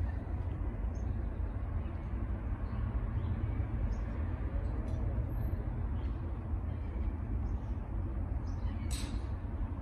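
Cat crunching dry kibble, faint crisp clicks over a steady low outdoor rumble. A short sharp sound stands out near the end.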